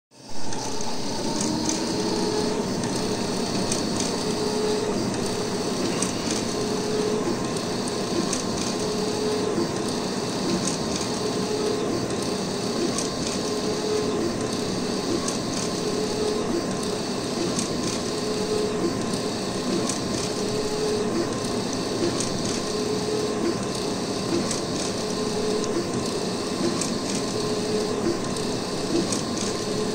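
Wide-format inkjet printer printing. The print-head carriage shuttles across the media about every second and a half, each pass giving a short motor whine with light ticks, over a steady mechanical hum.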